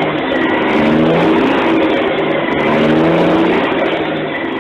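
Loud vehicle engine and road noise running continuously, its pitch shifting every second or so as it revs.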